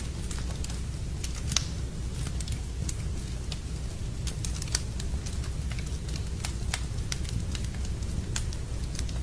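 Wood fire crackling in a fireplace: irregular sharp pops and snaps over a steady low rumble, with two louder pops about one and a half seconds and nearly five seconds in.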